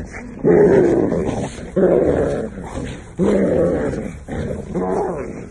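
A dog growling in play while tugging on a cloth: a run of rough growls, about one every second and a half.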